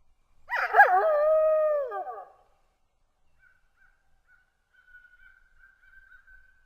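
Wolf howl: one loud call of about two seconds, beginning about half a second in, wavering at first, then held steady and dropping in pitch at the end. A faint, thin, high drawn-out sound follows and runs on.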